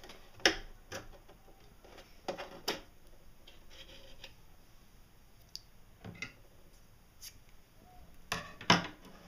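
A few sharp clicks and light taps of hands handling a sewing machine's bobbin winder, as the wound bobbin is taken off its spindle and the thread is freed. The loudest clicks come about half a second in and near the end.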